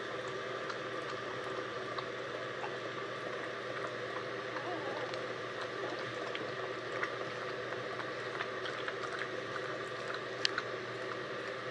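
Soft wet smacking and small clicks from newborn puppies suckling and their mother dog licking, over a steady background hum. One sharper click comes about ten and a half seconds in.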